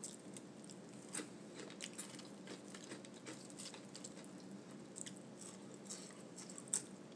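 A person chewing food close to the microphone, faintly, with scattered soft crunches and mouth clicks.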